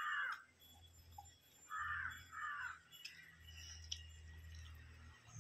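A crow cawing: one caw at the start, then two more in quick succession about two seconds in, over a faint low hum.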